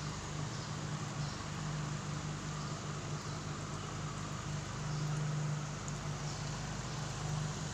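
Aquarium pump running: a steady electric hum under a constant hiss.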